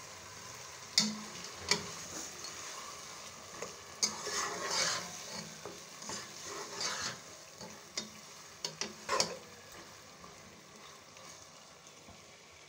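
Raw chicken pieces sizzling as they go into tomato masala frying in ghee in a pot, with a spoon scraping and knocking against the pot several times as it is stirred in. The knocks stop and the sizzle grows quieter for the last few seconds.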